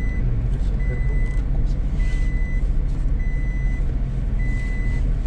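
A vehicle's engine running steadily while it drives, with a high electronic beep repeating about once a second, each beep about half a second long.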